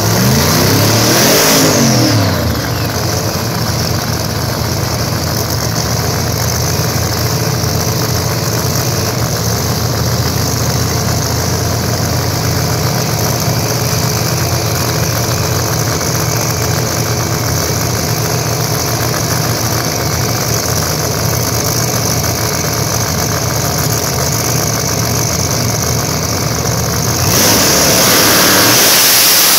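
Pro Mod drag racing cars' engines running at the starting line: a quick rev up and back down in the first couple of seconds, then a steady idle. Near the end the engines jump to a louder, high-rev sound as the cars go to launch.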